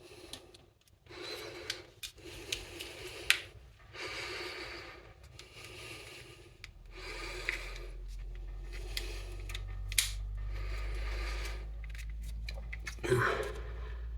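Plastic key fob case being handled and pressed together: spells of rubbing and scraping with several sharp clicks, and a steady low hum starting about halfway through.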